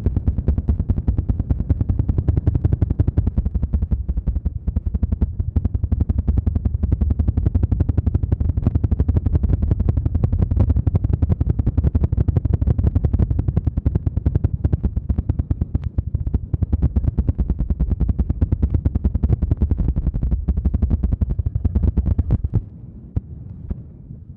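ASMR 'helicopter' trigger: rapid, steady patting on the microphone, giving a fast, deep, rhythmic flutter that stops shortly before the end.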